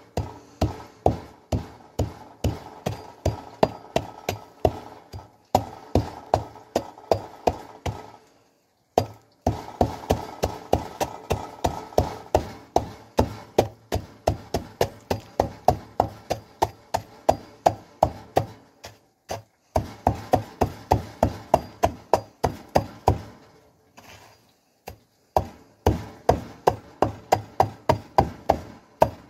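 A lump of baked black Thursday salt being pounded on sackcloth, with dull repeated blows at about three a second. The blows come in several runs with short pauses between them as the lump breaks into crumbs.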